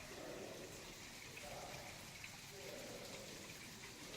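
Water running down a glass-panel waterfall, a faint steady patter like light rain.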